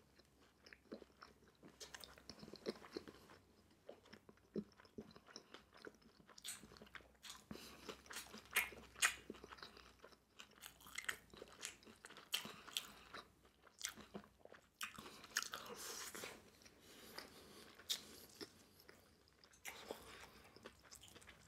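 Close-up chewing and biting of sweet and sour pork and white rice: faint, irregular crunches and wet mouth clicks, busiest through the middle and again near the end.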